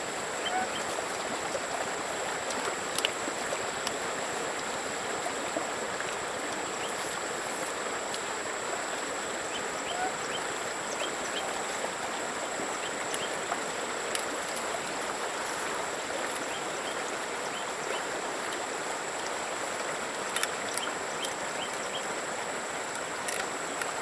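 A stream running steadily, with a faint thin high whine throughout and scattered small chirps and clicks.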